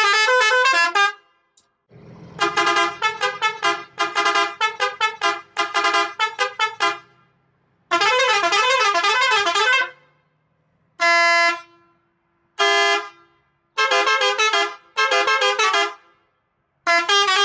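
A truck's custom horns sounding in a series of loud blasts that change pitch from note to note, like a tune: quick runs of short notes, a longer warbling passage about eight seconds in, then several separate blasts.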